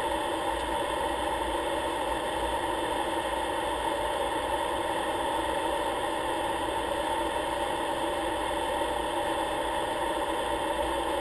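Aircraft engine drone and airflow noise heard inside the cockpit, steady and unchanging throughout.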